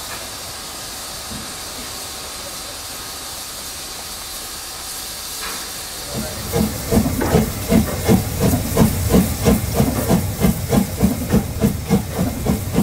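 Metre-gauge steam tank locomotive 99 7245-6 standing with a steady hiss of escaping steam. About six seconds in, a regular rhythmic steam beat starts up, roughly three strokes a second, and becomes the loudest sound.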